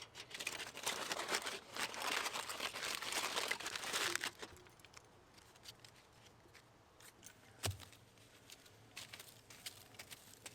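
Aluminium foil crinkling as it is handled, dense and continuous for about four seconds, then thinning to scattered crackles and ticks, with a single dull thump near eight seconds in.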